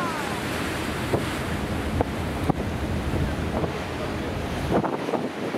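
Wind buffeting the microphone on an open ship's deck, over the wash of the sea, with a few light ticks; the low wind rumble drops away near the end.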